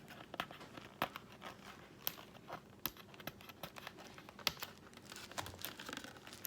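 Faint, irregular clicks and crinkling from small objects being handled, such as plastic packaging or wrappers.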